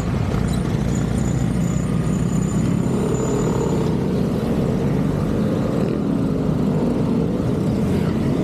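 Steady low rumbling background noise, with a faint thin high whine from about one to four seconds in.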